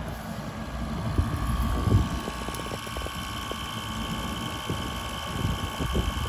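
Wind buffeting the microphone in uneven low rumbles. From about a second and a half in, a steady machine whine runs under it, from equipment on the roof.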